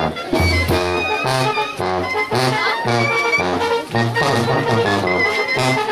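Brass band music at dance tempo: a steady bass note on each beat beneath brass melody lines.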